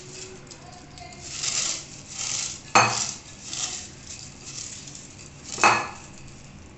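Crisp fried papad being crushed by hand in a glass bowl, crackling and crunching in short bursts, with two sharp clicks, one just before three seconds in and one just before six seconds in, the loudest sounds.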